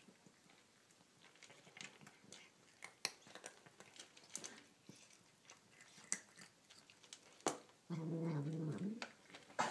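Two cats crunching dry kibble from a shared bowl, small irregular crunches. Near the end one cat gives a low growl lasting about a second, dropping in pitch as it ends, the loudest sound here.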